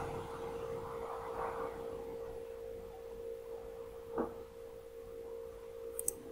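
A steady, mid-pitched hum holding one tone, with a soft click about four seconds in and a couple of faint, sharp ticks near the end.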